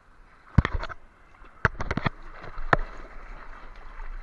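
Surfboards being paddled through the water: sharp splashes in quick clusters, the first about half a second in, the next around two seconds in, and a last one a little later. Under them runs a steady wash of surf.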